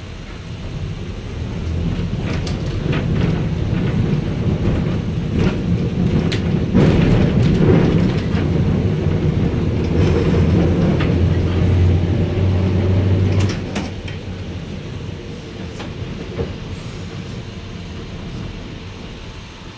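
Heritage streetcar heard from on board, running along its track: motor hum and wheel noise with clicks and rattles. It builds over the first couple of seconds and stays loud, with a steady low motor hum near the middle. About two-thirds of the way through it drops off to a quieter rolling sound as power is shut off.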